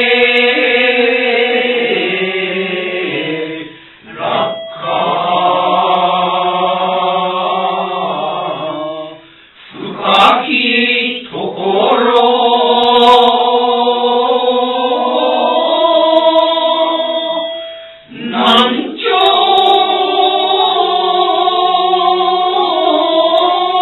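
A mixed group of men and women chanting shigin, Japanese recitation of a classical Chinese poem, in unison. Long, held notes waver in pitch, and the group breaks off for breath three times.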